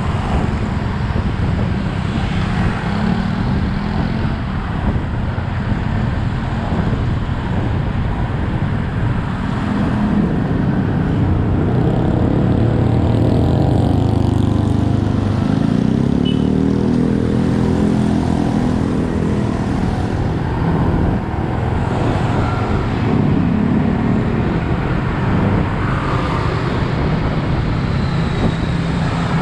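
Yamaha XSR 155's single-cylinder engine running on the move, its pitch climbing and falling several times as the bike accelerates and eases off, over steady road and traffic noise.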